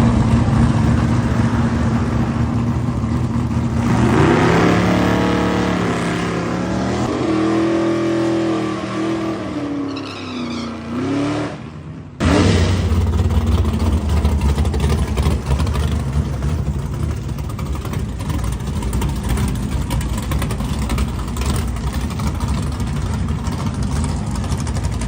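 Car engine running under way: a steady tone, then rising and falling in pitch as it revs through the middle, cutting off abruptly about halfway and giving way to a steady low drone.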